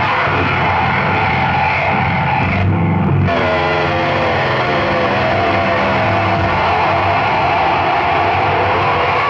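Loud live noise music through a PA: a dense, distorted wall of sound with no let-up. About three seconds in the high hiss briefly drops out, and a cluster of droning tones then slowly sinks in pitch.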